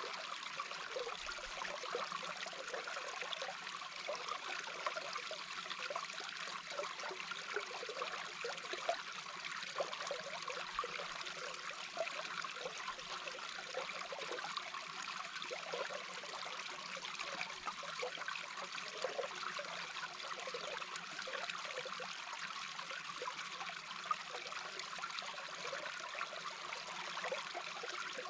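A small babbling brook heard from underwater: a steady, even rush of flowing water with a constant irregular flicker of lower sounds.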